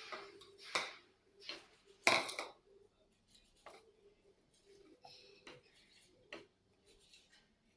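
Kitchen utensils and dishes knocking, clinking and scraping as dough is worked: a string of irregular short knocks, the loudest about two seconds in, growing fainter and sparser later.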